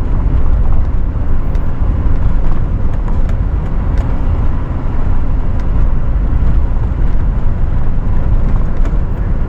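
Vehicle driving on a soft-sand dirt trail: a steady low rumble of engine and tyres, with a few faint ticks and knocks from the ride.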